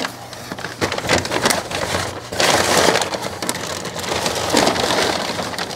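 Rustling and crinkling with many small clicks, as of a crinkly bag or wrapping being handled, louder through the middle.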